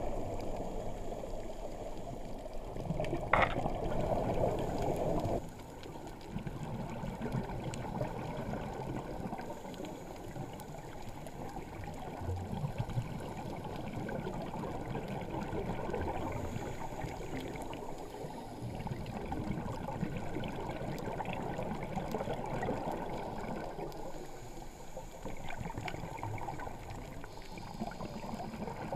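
Underwater ambient sound through a GoPro Hero3's sealed waterproof housing: a steady, muffled watery rush. There is a sharp click about three seconds in, and the level drops a little a couple of seconds later.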